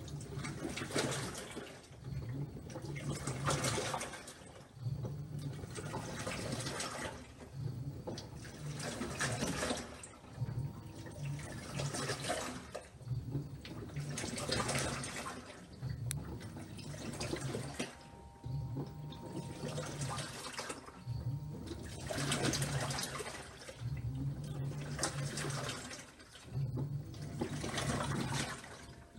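LG 6.5 kg washing machine agitating a mixed load in the wash phase: the motor turns the wash action in strokes of a second or two, pausing briefly between them, and each stroke sets the water swishing and sloshing.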